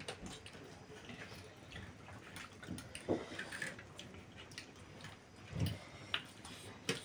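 Quiet eating at a table: scattered light ticks and taps of metal forks against plates, with soft chewing of noodles. A few slightly louder clicks come around the middle and just before the end.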